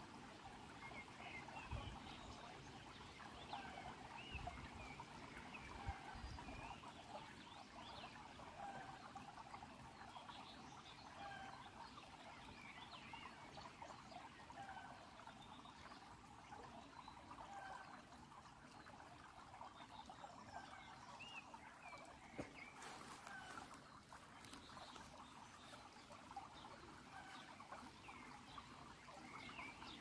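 Shallow stream trickling over pebbles and stones: a faint, steady babble with many small gurgling plinks.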